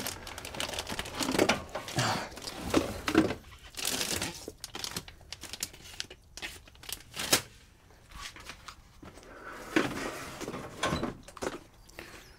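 Objects being moved around by hand: irregular plastic crinkling and rustling, broken by scattered knocks and bumps.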